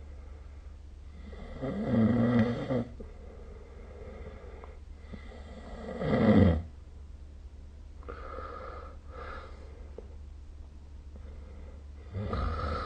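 A sleeping person snoring: two loud snores about four seconds apart, then softer breaths, and another snore beginning near the end.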